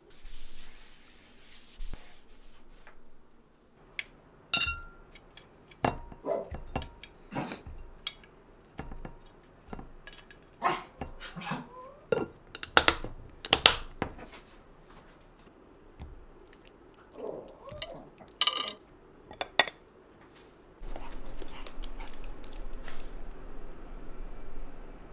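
Dishes and metal cutlery clinking and knocking in scattered strikes, a few of them ringing briefly; near the end a steady hiss comes in.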